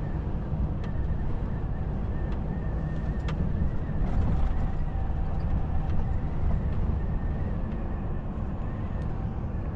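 Volvo FH truck cab at motorway cruising speed: a steady low rumble of engine, tyres and road heard from inside the cab, with a few faint ticks.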